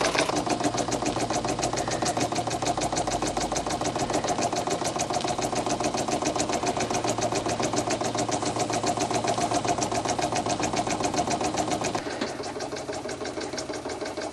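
A Cyldon 13-2 toy steam engine with a semi-rotative valve running steadily on live steam from a gas-fired boiler, its exhaust and mechanism beating fast and even. It sounds a little quieter near the end. The engine is running well on the gas heat.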